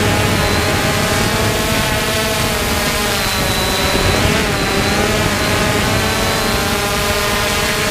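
3DR Solo quadcopter's motors and propellers whirring steadily, a stack of tones that waver slightly up and down in pitch over a rushing hiss.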